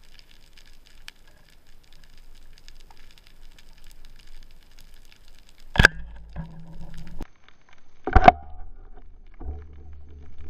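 Underwater crackling background, then a loud sharp crack about halfway through as the oleopneumatic speargun fires, followed by a low rumble. A second loud sharp crack comes about two and a half seconds later, with more low rumble after it.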